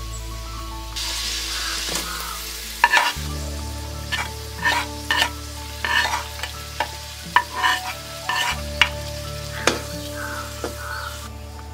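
Chopped onions and pandan leaves sizzling in hot fat in a metal wok, the sizzle swelling about a second in. From about three seconds in, a spoon stirs the onions, clicking and scraping against the wok again and again.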